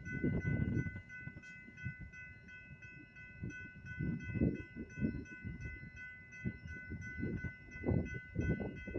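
Metra commuter train passing over a grade crossing, its wheels rumbling and clattering in uneven surges that swell near the end, while the crossing's warning bell rings steadily and rapidly.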